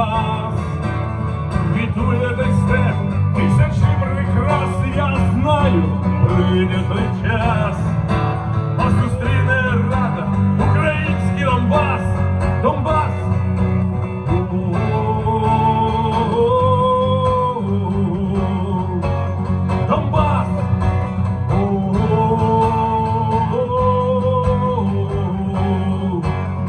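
A man singing live with his own strummed acoustic guitar, amplified through a stage PA. The singing includes a few long held notes in the second half.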